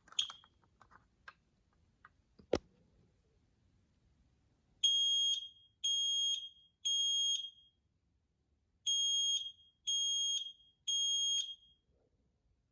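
Kidde i9010 ionization smoke alarm sounding on test. A sharp click comes about two and a half seconds in, then the piezo horn beeps high in the temporal-three pattern: three beeps, a pause, three more.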